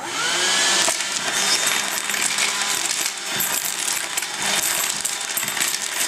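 Makita CL070DS 7.2 V cordless stick vacuum switched on, its motor whining up to speed over the first second and then running steadily. Coins clatter and rattle throughout as they are sucked up the pipe.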